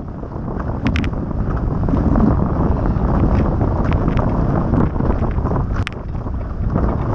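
Heavy wind buffeting on the microphone of a deck-mounted action camera on a Nacra F16 catamaran sailing fast, with water rushing past the hull. Several short splashes of spray hit through it.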